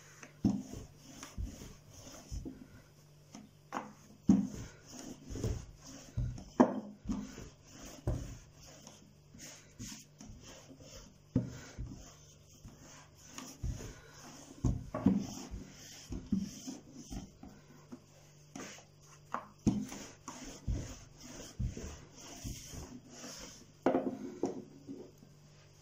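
A long, thin wooden rolling pin (oklava) rolls and rubs over dough on a floured wooden table, with irregular knocks and thumps as the pin and the dough sheet hit the board.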